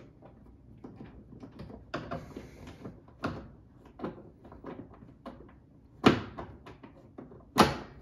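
Screwdriver driving screws into the plastic casing of an electric fireplace heater: a run of light clicks and scrapes, with two sharp knocks near the end.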